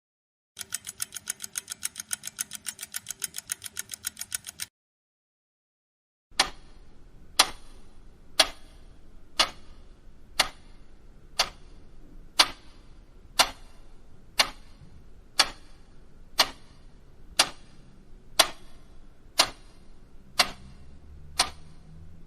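Clock ticking in two separate recordings. First a fast, even ticking of about seven ticks a second for about four seconds, with a faint steady hum under it. Then, after a short silence, a slower clock ticking sharply once a second.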